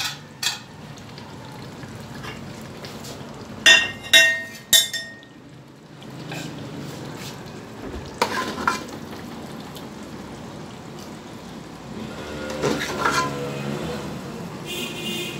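Metal ladle scraping and clinking against an aluminium cooking pot while thick potato-and-mince curry is ladled out, with a few sharp ringing clinks: three in quick succession about four seconds in, two more around eight seconds, and one near the end.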